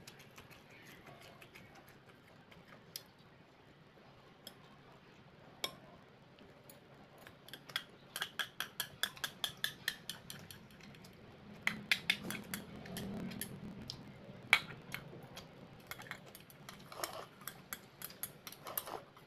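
Metal chopsticks and tableware clinking and tapping against ceramic bowls while eating: scattered light clicks, a quick run of ringing taps about five a second around the middle, and a few sharper clinks later.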